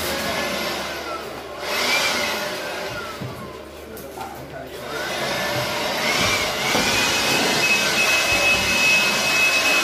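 Handheld cordless power tool's electric motor whirring, its whine rising and falling twice as it speeds up and slows down, then running steadily at high speed near the end.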